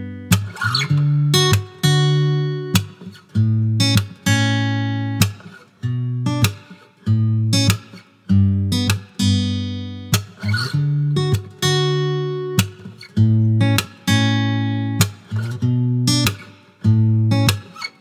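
Background music: a guitar strumming chords in a steady rhythm, each chord ringing out and fading before the next.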